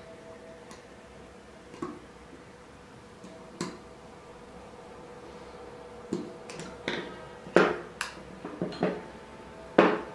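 Hand tools clicking and knocking against a steel folding bracket as it is held in pliers and worked with a small screwdriver. A few sharp clicks come first, then a busier run of knocks in the second half, the loudest near the end.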